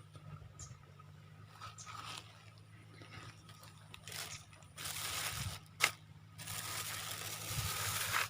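Rustling and scraping of leaves and twigs being handled: faint crackles at first, then a hissy rustle a little past halfway, a sharp click, and a longer rustle that stops just before the end.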